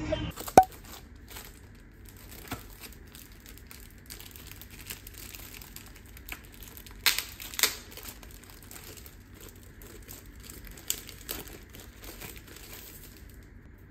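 Clear plastic wrapper crinkling and crackling as hands pull it off a paper note pad, with a few sharper crackles standing out, the loudest just after the start and about seven seconds in.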